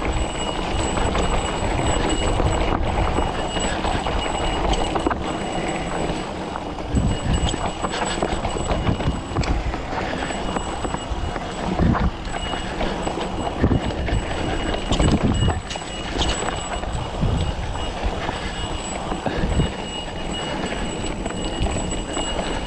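Bike riding over a rough mountain trail: a continuous rumble and rattle from the tyres and frame over rocks and roots, with irregular knocks and jolts.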